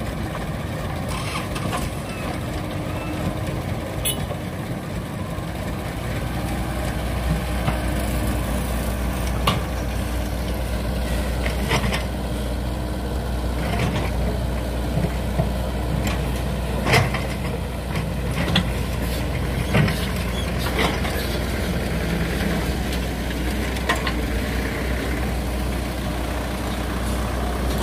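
Diesel engines of a mini excavator and a dump truck running steadily, with scattered sharp knocks and clanks from the machines and the earth they are loading.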